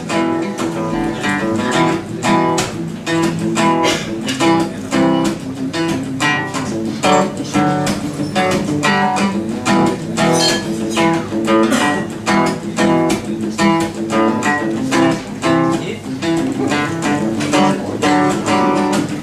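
Acoustic guitar strummed in a steady rhythm: an instrumental passage of a live acoustic song, with no singing.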